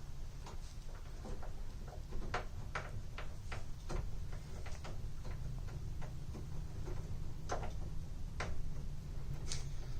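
Irregular light clicks and taps of small lock hardware being handled and fitted during a door-lock assembly, over a low steady hum.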